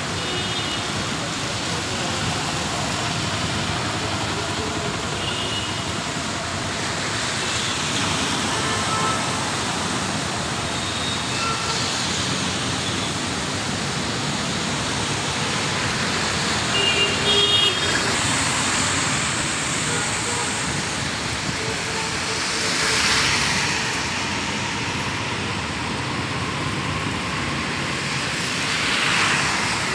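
Traffic on a rain-soaked road: a steady hiss of tyres on wet tarmac, with vehicles swelling past twice near the end. Short car horn toots sound several times in the first half.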